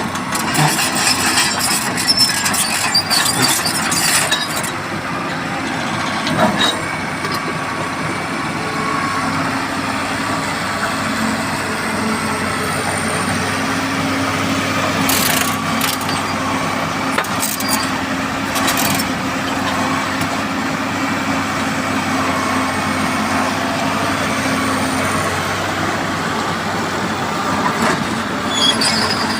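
Heavy machinery running with a steady engine drone. Clusters of sharp knocks and clatter come through in the first few seconds and again around the middle.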